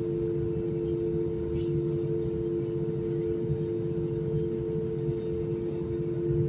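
Airbus A320-200 running steadily: a low rumble with two steady hum tones, unchanging throughout.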